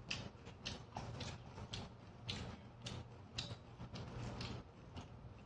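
Eating sounds of cold noodles: chopsticks stirring noodles in a steel bowl and wet chewing, heard as a run of soft, irregular clicks about two a second.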